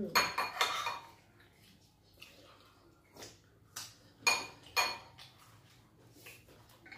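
Metal spoon clinking against a ceramic bowl: a few separate clinks with a short ring, the two loudest close together a little past the middle.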